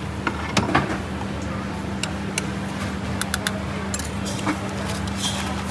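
Steady low machine hum with scattered sharp clinks of utensils and crockery, about ten in all.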